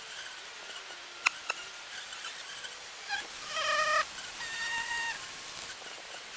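Eight-times fast-forwarded sound of insects at a sap flow on a tree trunk, where Japanese giant hornets are feeding: a couple of sharp clicks about a second in, then short, high, squeaky tones in the middle, the loudest just before four seconds, like wing buzzing raised in pitch by the speed-up.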